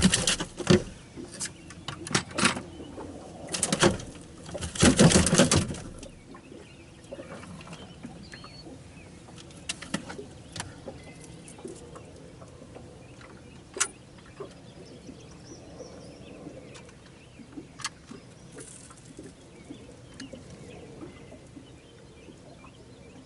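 Loud rustling and knocking for the first six seconds, from a big catfish being handled and hung on a scale to be weighed, then quiet outdoor ambience with scattered faint bird chirps and a few sharp clicks.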